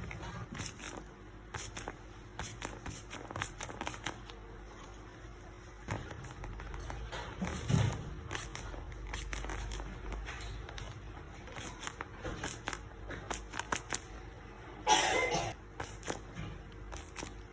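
Paper being handled and folded as a small paper box is made: light crinkling with scattered clicks and taps, a soft knock about 8 seconds in, and a louder rasping rustle of about half a second near the end.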